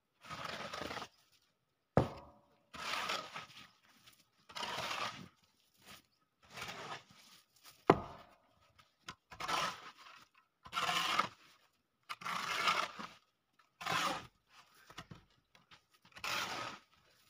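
Snow being scraped and shovelled off a concrete roof: about ten scraping strokes, each under a second long and coming roughly every second and a half, with a sharp knock about two seconds in and another near eight seconds.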